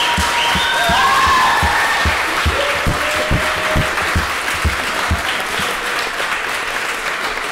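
Hall audience applauding and cheering, with a few whoops near the start. Under the clapping runs a rhythmic thumping of about two to three beats a second that fades out about five seconds in.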